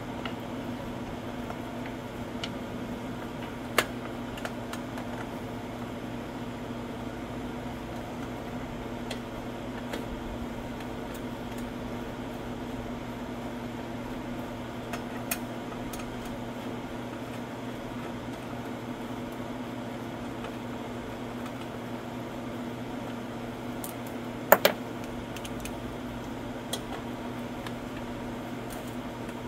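Single-cylinder push-mower engine running at a steady, even speed, with a few sharp clicks of metal tools on the engine: one about four seconds in and a double click near the end.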